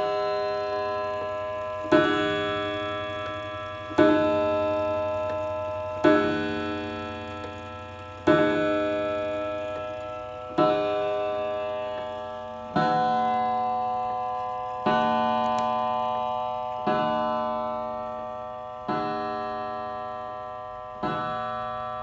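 Vintage FHS (Franz Hermle) mantel chime clock striking twelve o'clock on its gong: eleven slow, evenly spaced strikes about two seconds apart, each ringing on and fading before the next.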